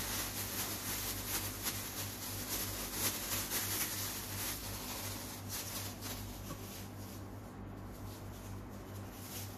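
Thin red plastic bag crinkling and rustling as a gloved hand squeezes and handles it, dying away about six seconds in. A low steady hum runs underneath.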